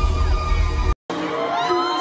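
A female singer holding a high Eb6 note in a live recording with the band underneath, cut off abruptly about a second in. After a brief dropout, another live clip begins with a high sung line that glides between held notes, over crowd cheering.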